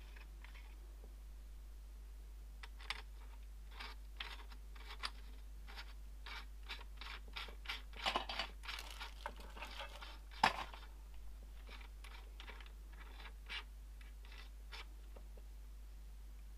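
Scattered light clicks, taps and scrapes from handling a stereo microscope as a camera is fitted to it, busiest in the middle stretch, with one sharper knock a little after the middle.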